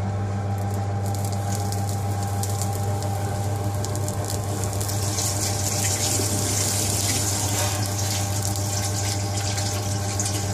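Marinated king prawns on a metal skewer sizzling and crackling in a hot tandoor, the crackle starting about a second in and growing louder around the middle. A steady low hum runs underneath.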